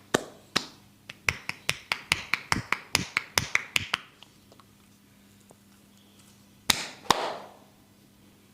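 Barber's hands striking and snapping during a percussive head massage: a couple of sharp smacks, then a quick even run of about five a second for some three seconds, then two louder smacks near the end.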